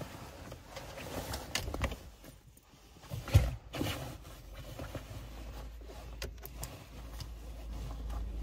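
Handling noise from a phone being moved about in a car phone holder: rustling and scattered clicks, with one sharp knock about three seconds in.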